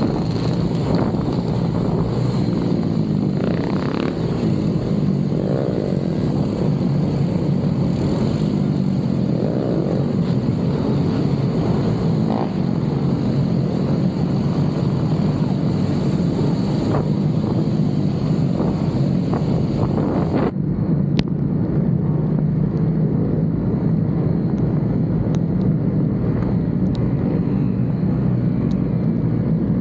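Motorcycle engine running steadily under a hiss of wind and road noise. The hiss cuts off suddenly about two-thirds of the way through, leaving the engine sound.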